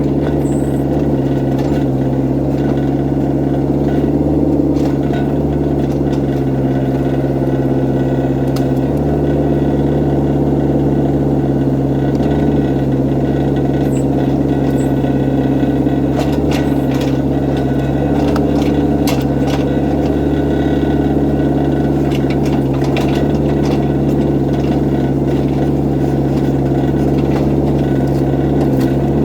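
Excavator's diesel engine running steadily, with scattered sharp clicks and knocks in the second half.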